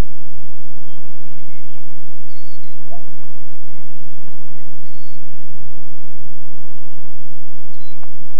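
A steady low hum from a camcorder's open microphone, with birds chirping in short high calls every couple of seconds. A single knock about three seconds in fits a golf club striking the ball.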